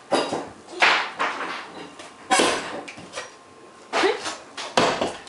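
A big hammer striking a bathroom wall and knocking pieces out of it: about five sharp, irregularly spaced blows.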